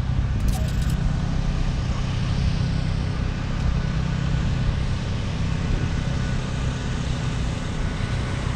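Steady low rumble of a running engine, with a short click about half a second in.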